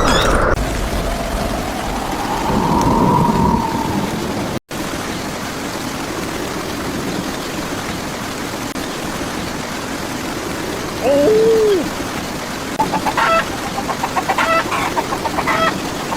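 Steady rain with chickens: one short falling call about eleven seconds in, then a run of quick clucks to the end.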